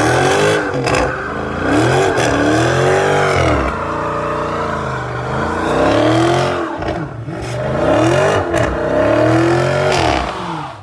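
Dodge Challenger doing a burnout: the engine revs up and down over and over, with rear tyres spinning and squealing on the pavement. The sound cuts off suddenly near the end.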